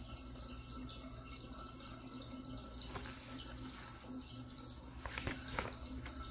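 Quiet room tone with a steady low hum, then a few soft clicks and handling noises about five seconds in as the hardcover picture book is moved and closed.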